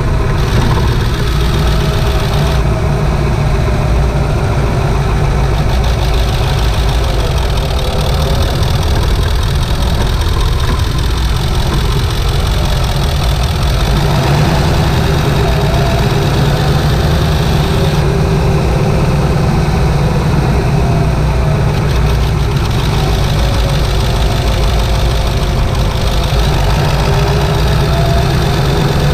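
A 1997 Ford F-250's 7.3-litre Powerstroke turbocharged V8 diesel running in ordinary driving, heard from inside the engine bay. Its pitch drifts gently up and down with engine speed.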